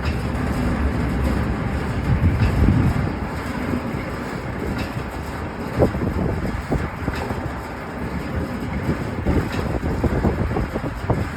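Air compressor casing cutting machine running: a steady mechanical rumble with irregular clanks and knocks, more of them in the second half.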